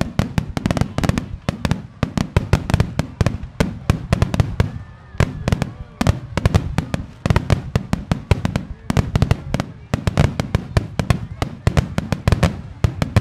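Japanese star mine firework barrage: aerial shells bursting in a dense, unbroken string of sharp booms and cracks, many a second.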